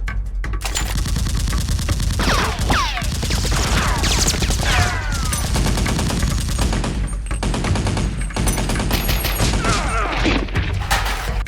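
Gunfire sound effects: sustained rapid automatic fire, with several falling whistles about two, four and ten seconds in.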